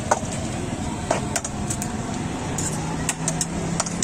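Steady background noise with a scattering of sharp clicks and taps: eggs knocked against a steel mixing bowl and cracked into it, and metal utensils on a steel griddle.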